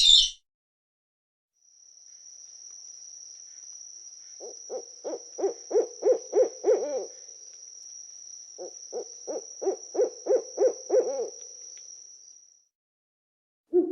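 An owl gives two rapid series of low hoots, about four a second, each lasting a couple of seconds with a short pause between them. A thin, steady high tone runs underneath, and a short sharp noise sounds at the very start.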